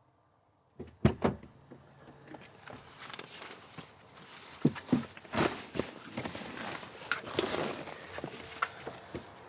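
Scattered footsteps and light knocks and handling noises, with two sharp clicks about a second in, after a moment of silence at the start.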